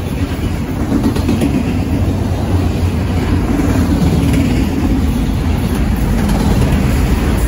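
Freight train of autorack cars rolling past: a steady, loud rumble of steel wheels on the rails.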